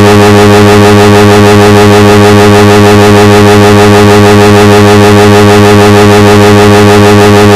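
A loud, steady electronic buzz: one low pitch with many overtones, held without any change in pitch or level.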